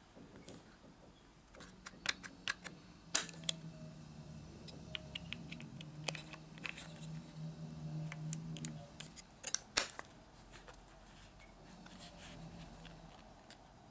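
Sharp plastic clicks and handling noise from a Nikon D600 DSLR's memory card slot as the card door is opened and an SD card is pushed in and latched. Two clicks, about 3 s and 10 s in, are the loudest, and a low hum comes and goes underneath.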